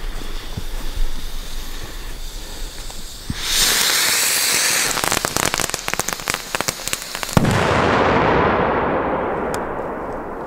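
Firework hissing for about a second and a half, then a quick run of sharp crackles, then one loud bang about seven seconds in that rumbles and echoes away over the next few seconds.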